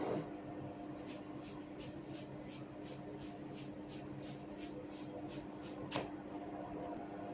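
Hair cracking during a head massage: a sharp crack right at the start and another about six seconds in, with soft rhythmic rubbing of hair strands, about three strokes a second, in between. A steady low hum runs underneath.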